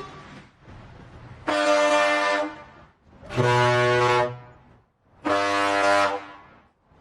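A vehicle horn sounds three long, loud blasts, evenly spaced about two seconds apart.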